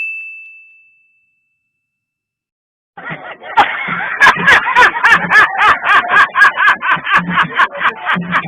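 A single bright ding fading away over about a second, then silence. About three seconds in, a loud, busy sound effect starts: quick sharp strikes about four a second over sweeping pitched sounds.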